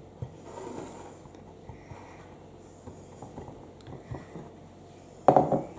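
A utensil quietly scraping and tapping as buttery biscuit crumbs are pressed into a dish for a cheesecake base, then one sharp knock against the dish near the end.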